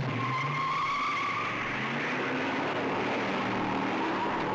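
Car tyres squealing loudly under hard acceleration while the engine revs up, the squeal strongest in the first two seconds.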